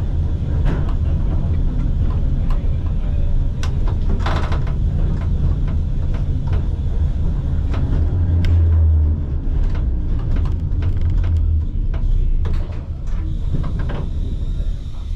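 Vintage museum tram running on its track: a steady low rumble with scattered clicks and knocks.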